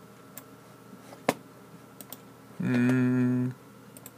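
Scattered computer mouse clicks, a few single clicks a second or so apart. Just past the middle comes a short, steady held hum from a man's voice, under a second long and louder than the clicks.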